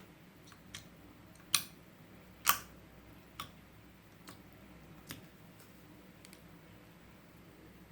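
A string of short, sharp clicks or snaps, about one a second, two of them, near 1.5 and 2.5 seconds in, much louder than the rest.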